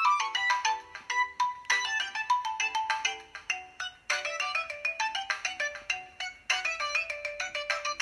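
Preloaded ringtone playing from a Huawei ETS3 phone: a quick melody of short, struck notes.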